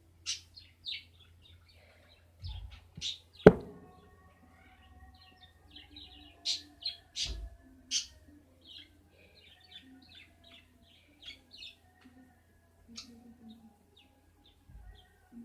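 Small birds chirping in short, repeated calls, with a sharp knock about three and a half seconds in and a few softer thumps of handling.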